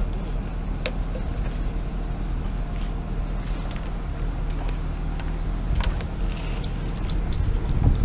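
Tractor engine running steadily close by as it works a cable plough, with a few light clicks.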